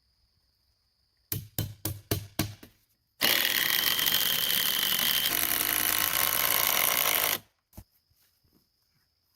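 A quick run of about six knocks, then a power drill running hard for about four seconds, driving into wood to fasten the beam joints, and stopping abruptly.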